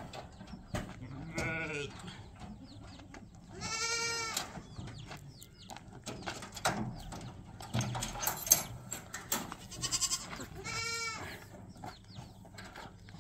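Goats bleating, three short calls about a second and a half, four and eleven seconds in. Between them come scattered sharp knocks as hollow concrete blocks are handled on a pickup's bed.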